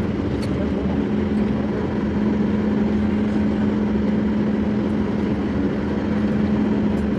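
Steady cabin drone inside a Boeing 737 MAX airliner just after landing, with a low steady hum under the engine and air noise.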